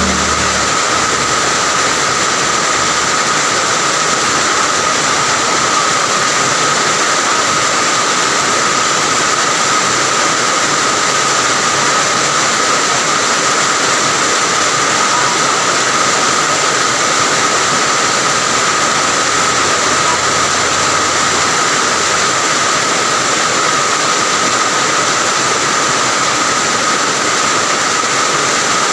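Steady rain falling, an even continuous hiss that holds without a break. A low vehicle engine hum fades out in the first few seconds.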